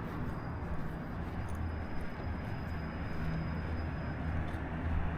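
Steady low rumble of vehicle traffic, with a faint thin high whine running through most of it.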